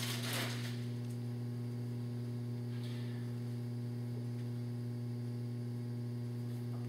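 Steady low electrical mains hum, with a brief rustle of paper right at the start.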